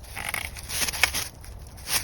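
Irregular crunching and crackling with sharp snaps, like dry twigs and forest-floor debris being crushed, loudest about a second in.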